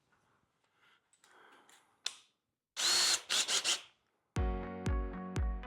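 A power drill whirs in a few short bursts, with a brief whine in the first. Background music with a steady beat comes in near the end.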